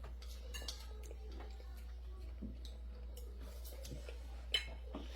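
A few faint, scattered clicks of cutlery and dishes at a meal table, the sharpest about four and a half seconds in, over a low steady hum.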